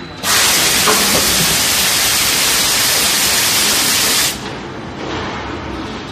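Compressed-air blow-off at an open injection mould, the air blast that frees the moulded polypropylene stool from the mould: a loud, steady hiss that starts about a quarter second in and cuts off suddenly about four seconds later.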